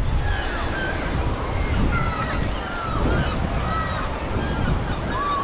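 Sea surf washing onto the beach, with wind buffeting the microphone as a steady low rumble. Distant voices of people on the beach, short high shouts and calls, carry over it.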